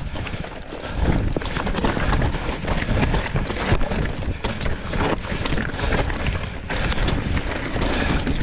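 Mountain bike rolling down a loose, rocky trail: tyres crunching over gravel and stones, with many small knocks and rattles from the bike, under wind buffeting the camera's microphone.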